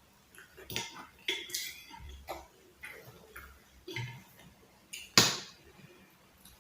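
Spoon clinking and tapping against a bowl of custard in scattered short clicks, one louder clink about five seconds in.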